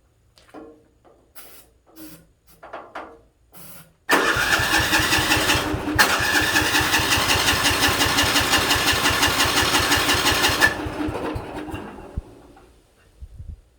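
Sears 10/6 lawn tractor's engine being cranked over by its electric starter for about six seconds with starting fluid, turning over in an even rhythm without catching, then spinning down once the key is released. A few light clicks come before it.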